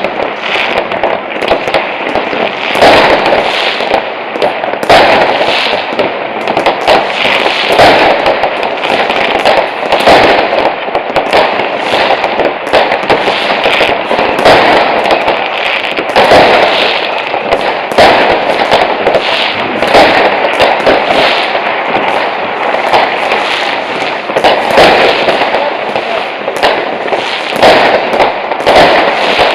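Massed fireworks, with rockets and firecrackers going off at once. They make a dense, unbroken barrage of bangs, several a second, with crackling in between.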